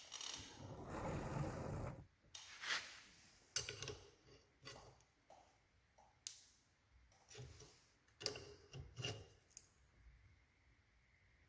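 Faint handling of metal tools and differential parts: a rubbing scrape in the first two seconds, then scattered light clinks and knocks.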